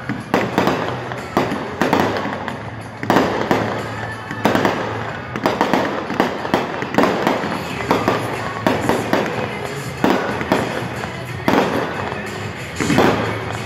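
A fireworks display: shells bursting in a dense, unbroken run of bangs, about two a second, with music playing underneath.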